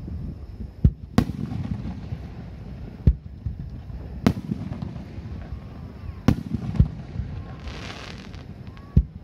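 Aerial firework shells bursting overhead, seven sharp bangs a second or two apart, with a short hiss about eight seconds in.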